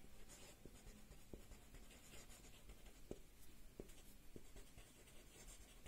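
Faint scratching of a felt-tip marker writing on paper, with a few light ticks as the letters are formed.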